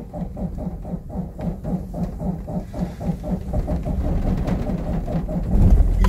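Van engine being turned over by the starter motor, cranking for several seconds with about three even pulses a second, then catching and running near the end.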